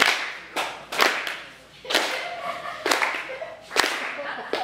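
Hand claps keeping a rough beat, the strongest about once a second with lighter ones in between, each echoing briefly in a wood-panelled hall.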